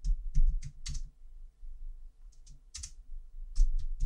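Computer keyboard keys pressed in quick clusters, about a dozen keystrokes in all, as shortcut keys are used.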